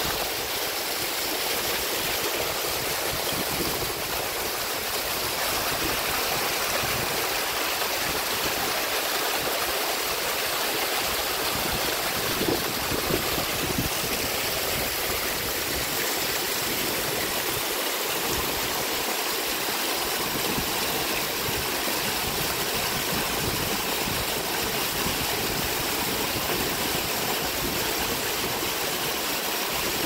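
Waterfall spilling and spraying down a steep rock face: a steady rush of falling, splashing water.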